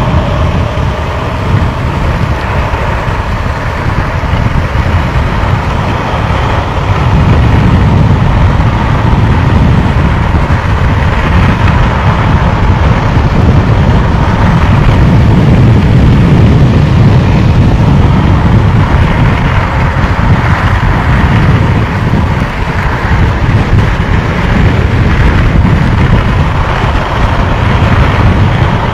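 Wind buffeting the microphone at downhill longboarding speed, over the rolling of longboard wheels on asphalt. It is a loud, steady rush, heaviest in the low end, with a faint steady whine.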